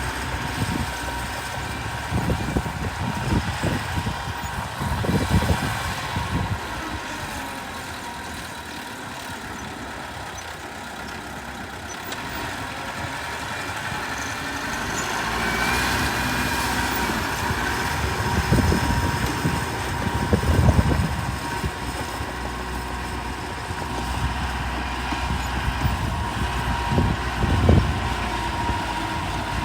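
Heavy diesel earthmoving machinery running steadily with a droning engine note. Short low thumps come in a few clusters: near the start, about two-thirds of the way in, and near the end.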